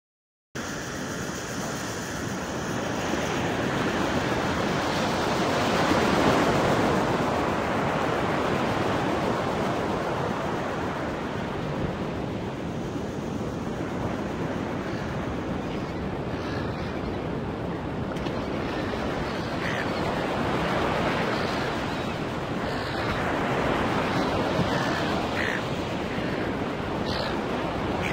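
Ocean surf: small waves breaking and washing up a sandy beach, a continuous rush that swells and eases every few seconds.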